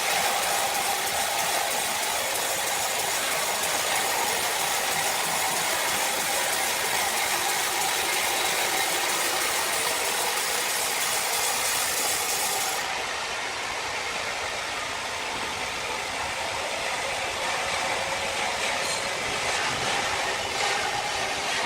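Sawmill machinery running as a saw cuts timber: a steady, noisy drone with a faint whine in it. About 13 seconds in, the sound turns abruptly duller.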